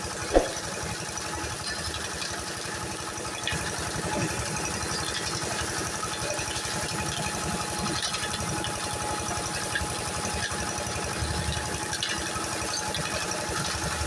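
Concrete mixer's engine running steadily with a rattle, its drum turning. A single sharp knock about half a second in.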